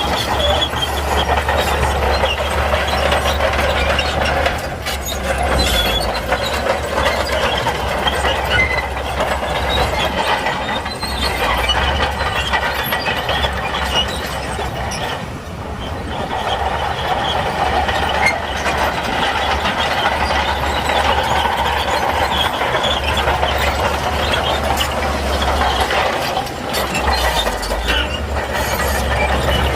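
Shantui crawler bulldozer working: a steady low diesel drone under the continuous clanking and squealing of its steel tracks, easing briefly about halfway through.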